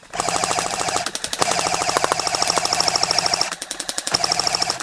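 Airsoft electric gun firing on full auto, rapid even clicks over a steady gearbox whine: a long burst of about three and a half seconds, then after a brief pause a second burst.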